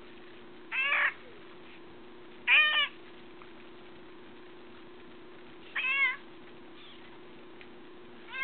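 Domestic cat meowing while being washed under a garden hose: three short meows, each rising then falling in pitch and a couple of seconds apart, with a fourth starting right at the end. A faint steady hum runs underneath.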